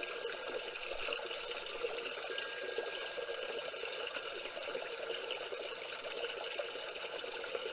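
Small waterfall splashing and flowing over river stones, a steady continuous rush of water.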